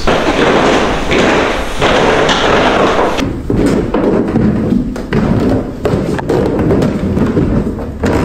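Footsteps of several people climbing a wooden staircase: a run of uneven thumps on the treads, after about three seconds of rustling.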